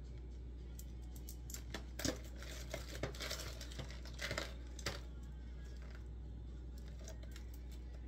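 A cluster of small clicks, taps and rustles over about three seconds as a paintbrush and a small stretched canvas are handled, set against a steady low hum.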